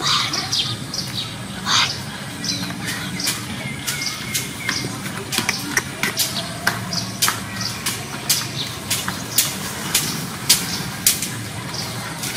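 Outdoor ambience: a steady low hum under many short, sharp clicks and brief chirps, the clicks coming thicker in the second half.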